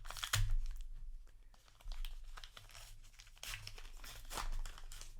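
Paper trading-card booster pack being torn open and its wrapper crinkled, in several short bursts of tearing, the loudest right at the start.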